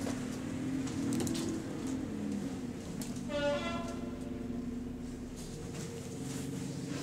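Double-decker bus's engine and cooling fan droning steadily, heard inside the upper deck, the pitch rising and falling a little in the first couple of seconds. About halfway through, a brief high tone falling in pitch cuts across the drone.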